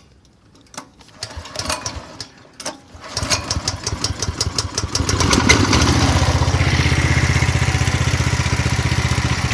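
Rebuilt 170F single-cylinder engine being started: a few scattered clicks, then it catches about three seconds in, picks up and settles into a steady, even idle. No knock is heard after the crankshaft and connecting rod were replaced.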